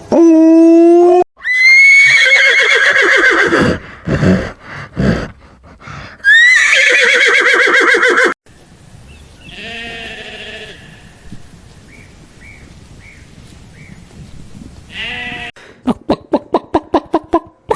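A horse whinnying loudly twice, each call starting high and wavering as it falls, with other shorter animal calls between and a quick run of sharp clicks near the end.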